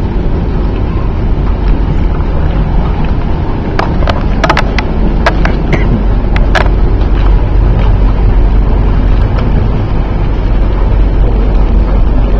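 Loud steady low rumble of aircraft and ground-equipment noise heard inside a boarding jet bridge beside an Airbus A380. A handful of sharp clicks or knocks come between about four and seven seconds in.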